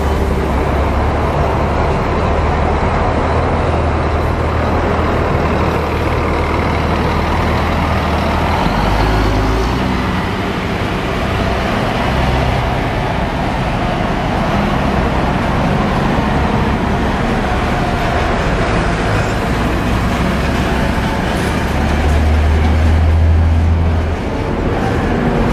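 Scania diesel engine of a Marcopolo Paradiso 1800 DD double-decker coach pulling past and driving away, a steady low drone that drops off after about eight seconds, over city traffic noise. Near the end, another loud low engine hum from a heavy vehicle close by.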